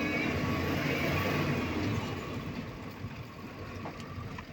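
Vehicle driving, with steady engine and road noise that drops in level about halfway through.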